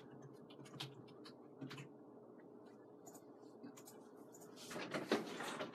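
Flat paintbrush working watercolour paint: faint light taps and bristle scrapes, then a louder brushing stroke lasting about a second near the end.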